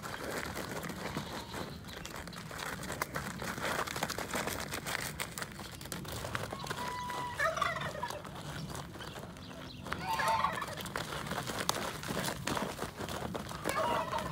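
Young bulls' hooves scuffing and knocking in loose dirt as they shove and butt heads. A fowl gives short gobbling calls three times: about seven seconds in, about ten seconds in, and near the end.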